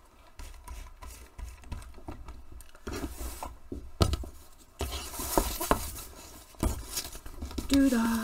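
Small hand ink roller rolled and rubbed over fabric on a textured printing plate, with irregular scuffs, rustles and light knocks as the fabric is handled. A woman's voice starts singing a note near the end.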